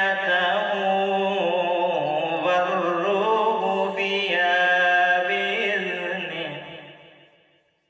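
Solo male melodic Quran recitation (tilawat) into a microphone: one long drawn-out phrase with held, ornamented notes that gradually fades out near the end.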